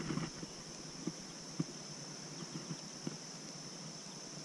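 Insects trilling steadily in an even, high-pitched drone, with a few faint soft ticks.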